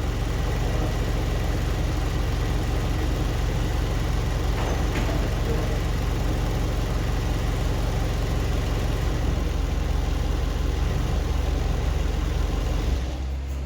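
An engine idling steadily with a low, even drone. About thirteen seconds in it drops in level and changes.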